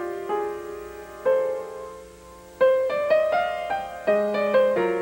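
Solo piano music playing a slow, gentle melody of single notes and chords, each note struck and left to fade. The notes come closer together about halfway through.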